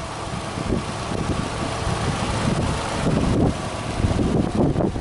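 Subaru Legacy B4 2.0GT spec.B's EJ20 turbocharged flat-four engine idling steadily, heard from the open engine bay.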